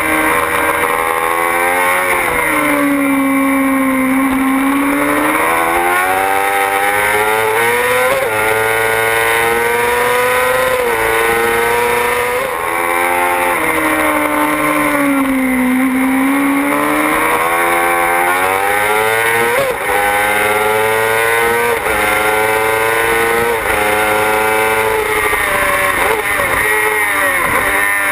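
Yamaha R6 inline-four sport-bike engine at racing speed, heard onboard: its pitch drops to a low about four seconds and again about sixteen seconds in, then climbs in steps through the upshifts. Near the end there are several quick rises and falls as it shifts down. A steady rush of wind noise runs under it.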